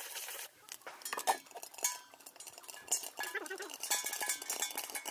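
Popcorn kernels popping in a covered pan on the stove: irregular sharp pops and clinks as the kernels strike the small metal vessel used as a lid, starting about half a second in.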